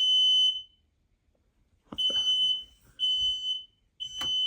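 Household smoke alarm sounding under its test button: loud, high-pitched half-second beeps in the temporal-three evacuation pattern. One beep ends a group, then after a pause of about a second and a half comes a group of three beeps about a second apart. A sharp click lands about four seconds in.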